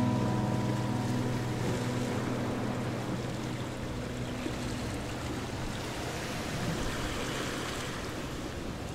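Background music fading out over the first few seconds, leaving a steady rushing noise like wind or flowing water.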